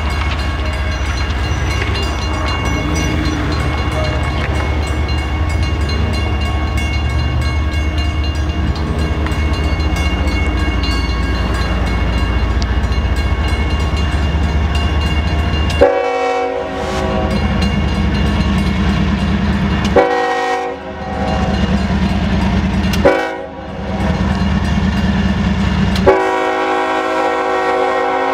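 Railroad crossing bell ringing steadily over a low rumble while the gates are down. From about halfway, an approaching locomotive's air horn sounds four blasts in a row, the last one held as the train reaches the crossing.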